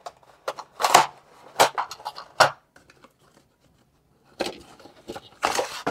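Unpacking noise: paper and a plastic foam tray being handled, with a few short crinkles and knocks in the first couple of seconds, a pause, then about a second of paper rustling near the end.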